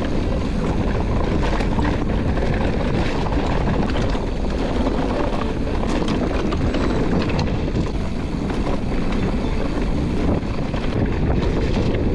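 Loud, steady rush of wind on the microphone mixed with the rolling and rattling of a mountain bike ridden along a trail, with small knocks as it goes over bumps.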